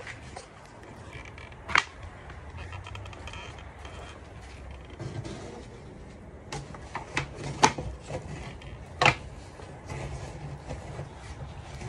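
A handful of sharp knocks and clicks at irregular intervals, the sound of objects being handled and set down, over a low rumble of handling noise.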